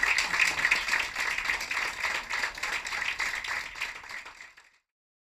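Audience applauding, a dense patter of many hands clapping, fading out about four and a half seconds in.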